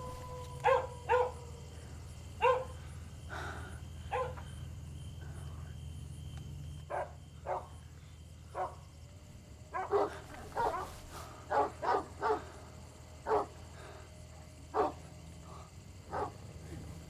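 A dog barking on and off: short single barks and quick runs of two or three, over a steady low hum.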